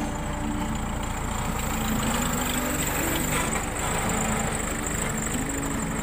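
Backhoe loader's diesel engine running as the machine drives close past, carrying a loaded pallet on its front forks.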